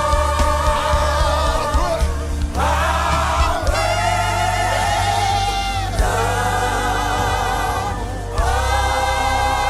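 Live gospel worship: a choir or singers holding long, wavering notes over a steady band accompaniment, in sustained phrases with short breaks between them.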